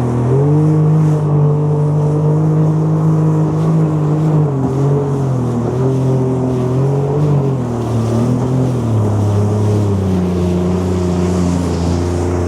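Jet ski engine running under throttle, its pitch rising about half a second in, easing back down around four to five seconds, and settling lower for the last few seconds as the throttle is eased.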